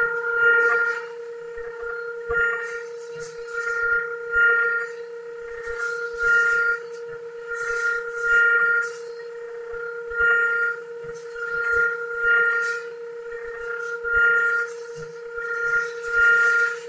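CNC router spindle running with a steady high whine while the cutter works a wooden blank on the rotary axis, the cutting noise swelling and easing about every two seconds.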